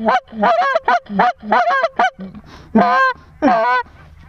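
Goose clucks and honks in quick succession, about five short notes a second, then a brief pause and two longer honks about three seconds in before the calling stops near the end.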